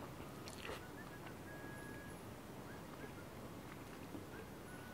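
Faint chewing of a mouthful of cheesy meatball pizza, with a few soft mouth clicks, the clearest about half a second in.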